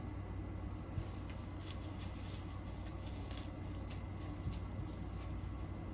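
Faint handling noise of fingers pressing and smoothing a privacy screen protector onto a phone screen, with a few light taps and clicks, over a steady low hum.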